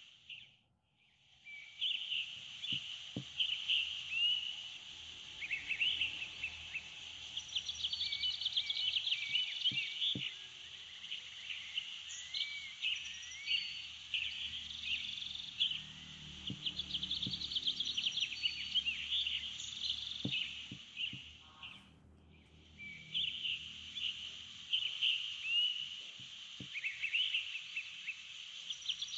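Recorded nature ambience: many small birds chirping and trilling in quick short calls over a steady insect-like hiss. It fades out briefly just after the start and again about three-quarters of the way through.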